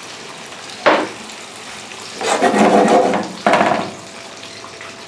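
Spinach in oil sizzling steadily in a nonstick grill pan on an electric hot plate. A sharp knock comes about a second in, then louder scraping and clattering around two to four seconds in as the pan is handled on the hob.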